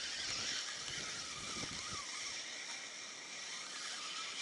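Steady hiss of wind and water while a hooked perch is reeled in on a spinning rod, with some low splashing in the first two seconds.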